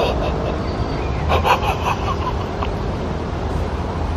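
Steady low rumble in the background, with a short laugh-like sound from a man about a second and a half in.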